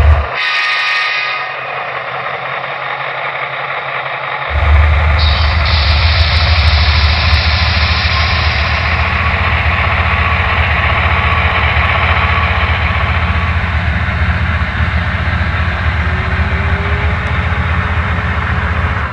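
Locomotive engine sound from a sound-equipped model train playing through the Rolling Thunder subwoofer: a steady, heavy rumble. The deep bass cuts out just after the start and comes back strongly about four and a half seconds in.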